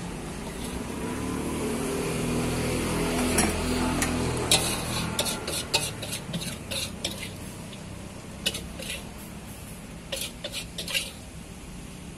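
A metal ladle scraping and clinking against a steel wok as seblak broth is scooped out and served into a bowl, with a run of sharp, irregular clinks starting a few seconds in. A low rumbling hum sits under the first few seconds.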